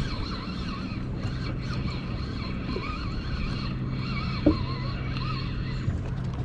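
Boat engine running steadily at idle, a low even hum, with thin wavering high calls over it and one short rising sweep about four and a half seconds in.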